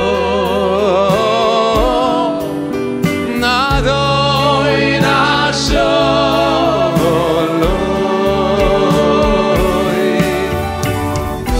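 A Hebrew song sung with band accompaniment: a voice carries a wavering melody over held bass notes and a regular kick drum.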